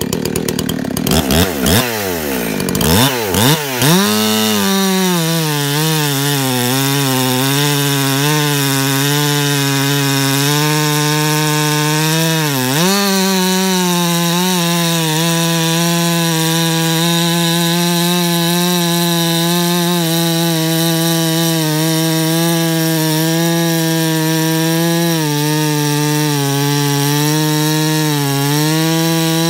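Husqvarna 359 two-stroke chainsaw with a 20-inch bar and 3/8 full-chisel chain cutting through a large log at full throttle. The revs swing up and down for the first few seconds, then the engine settles to one steady, loaded pitch for the long cut, with a brief dip in revs about twelve seconds in.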